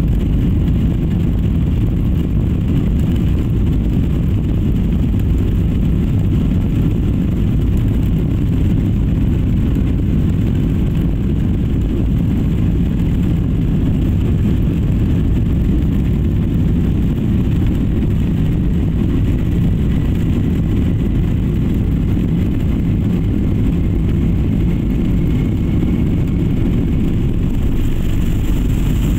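Jet airliner heard from inside the cabin as it speeds down the runway: a loud, steady rumble of engines and wheels, with a faint whine that rises slowly in the second half.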